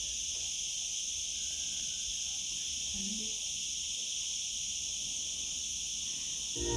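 Steady high chorus of chirring insects, with a faint low rumble underneath. Music from a portable speaker comes back in just before the end.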